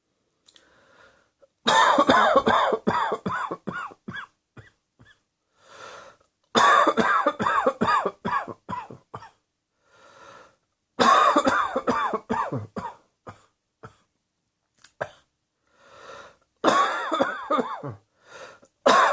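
A person coughing hard in four fits, each a quick run of about eight to ten hacking coughs that trail off. Faint breaths come between the fits.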